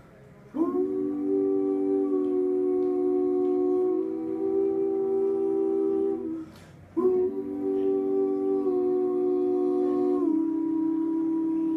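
Male a cappella group holding close-harmony chords, hummed and sung on open vowels, with no lead melody. Two long chords, the first shifting slightly about four seconds in, with a short breath gap around six and a half seconds before the second chord, which shifts again near ten seconds.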